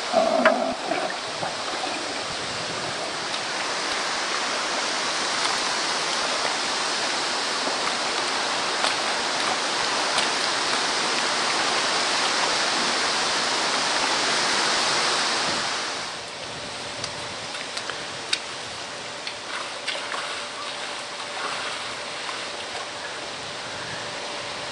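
Steady rushing hiss of running water, with a pig grunting at the start; about sixteen seconds in the hiss drops to a quieter level, broken by a few light clicks.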